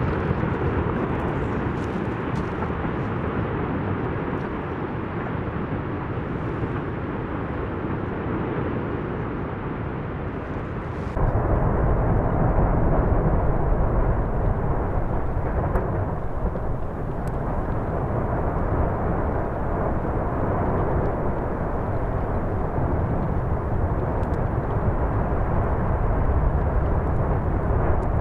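Lava fountain jetting from an erupting volcanic crater at Fagradalsfjall: a steady rushing rumble. About eleven seconds in it turns louder and deeper.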